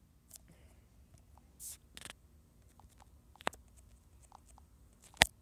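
Faint scattered taps and soft brushing from a fingertip on a phone touchscreen, with a sharp click about five seconds in that is the loudest sound.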